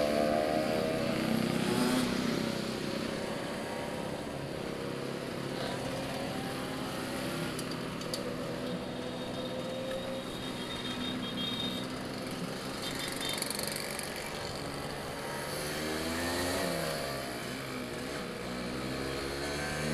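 Vespa scooter engine running under way, heard from the rider's seat with wind rush on the microphone. The engine note falls at first, holds steady, then dips and climbs again about three-quarters of the way through.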